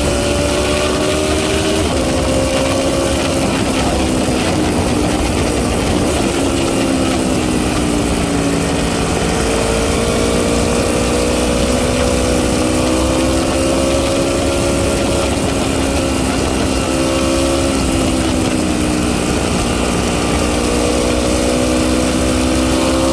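Aprilia RSV4 RR's 65-degree V4 engine idling, its pitch wandering slowly down and back up rather than holding steady.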